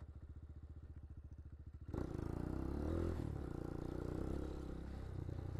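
Hawk 250 dual-sport motorcycle's single-cylinder engine ticking over with an even pulse at low speed. About two seconds in the throttle opens and it pulls away, running louder under load.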